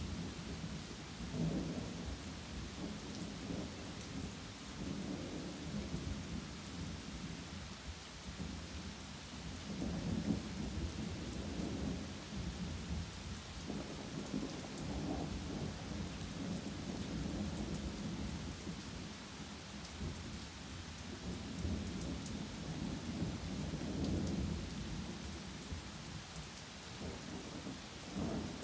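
Steady rain with non-stop thunder: low rumbles swell and fade every few seconds, the loudest about ten seconds in, over the even hiss of the rain.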